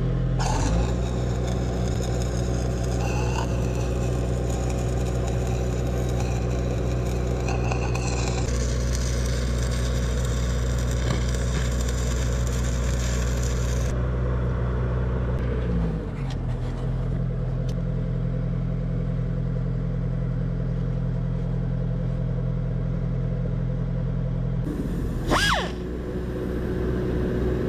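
Stick welding, crackling and hissing as E7018 rods weld extractor pipes onto broken slew ring gear bolts, over a steady engine drone. Near the end, a short rising whine as a die grinder spins up.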